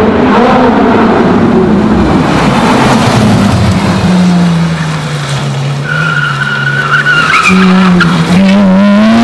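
Ferrari 458 Italia's flat-plane V8 through an exhaust the owner doesn't take for stock. It revs high, falls away to low revs while the car slows and turns, then climbs again near the end. Tyres squeal briefly in the turn.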